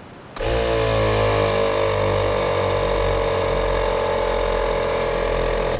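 ARB dual air compressor switching on and running steadily, heard inside the truck's cab. Its motor hum starts about half a second in, its pitch settles a little lower over the first second or so, and it stops near the end.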